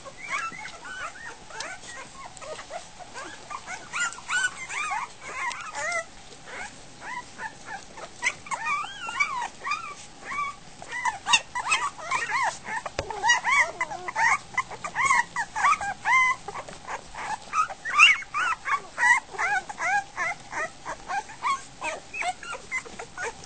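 A litter of week-old goldendoodle puppies whimpering and squealing, many short, high, rising-and-falling cries overlapping one another throughout: newborn puppies hungry and searching for their mother to nurse.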